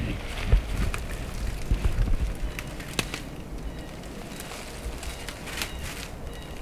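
Footsteps crunching through dry leaf litter and snapping small twigs, a scatter of irregular crackles, with wind rumbling on the microphone in the first couple of seconds.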